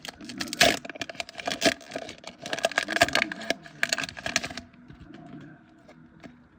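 Foil wrapper of a Pokémon TCG booster pack being crinkled and torn open: a dense run of crackling that stops after about four and a half seconds.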